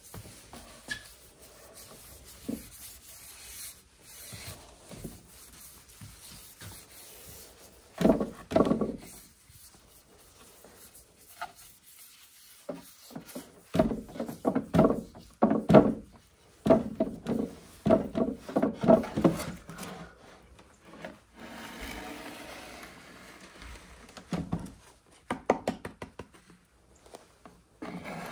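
Hand strokes rubbing on wood, coming in several runs of quick back-and-forth strokes with short pauses between them.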